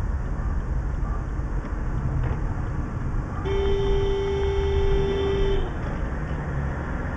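A car horn held for about two seconds on one steady note, starting about three and a half seconds in, over the low rumble of road and engine noise inside a moving car.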